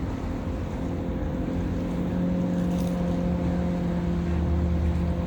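An engine running steadily, a low hum that holds its pitch and grows a little louder after about two seconds.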